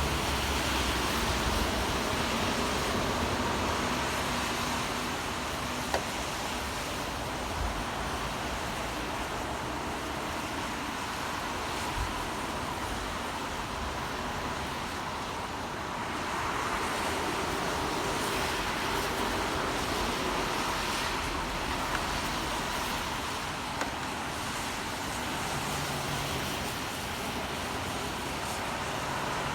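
Rain and city road traffic making a steady wash of noise, swelling slightly now and then as vehicles pass, with a few faint ticks.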